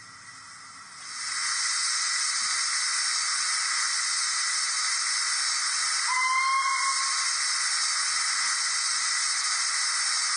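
DCC sound decoder in a Dapol Hawthorn Leslie model steam locomotive playing its manual drain cocks sound: a steady hiss of steam blowing from open cylinder drain cocks. It swells up about a second in and then holds steady. A short rising whistle-like tone comes through about six seconds in.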